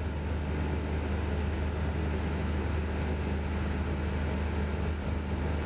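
Chopped onions sizzling steadily as they fry in hot oil with whole spices, over a steady low hum.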